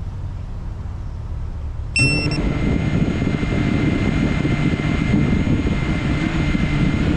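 Low background rumble, then about two seconds in a small FPV quadcopter's motors start with a brief beep and keep spinning at idle, a steady propeller whir with a thin whine over it: the drone armed on the ground, ready for takeoff.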